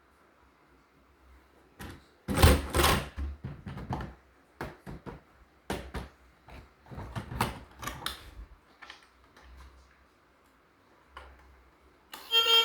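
Irregular sharp clacks and knocks of hard objects being handled, loudest at the start of the run and dying away after several seconds; music starts just before the end.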